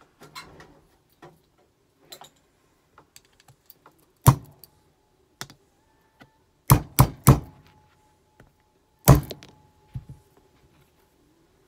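Brass hammer striking a pin punch set in a pistol slide (Kimber Ultra Plus CDP) to drive a pin out. There are five sharp metallic taps: one about four seconds in, three in quick succession near seven seconds, and one just after nine seconds. Light clicks of small parts being handled come between them.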